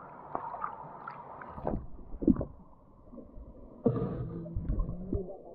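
Stream water heard through a camera dipped under the surface: small splashes at first, then a dull, muffled underwater sound with low thuds about two seconds in, and a louder muffled rush starting suddenly about four seconds in.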